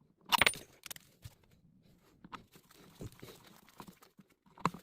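Hands working a wall switch and its screws into place: a short scraping rustle about a third of a second in, scattered light clicks and taps, and another brief scrape near the end.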